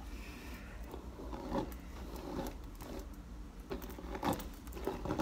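Hair being brushed and handled with a paddle hairbrush: a series of irregular rustling strokes, several of them stronger in the second half, over a steady low room hum.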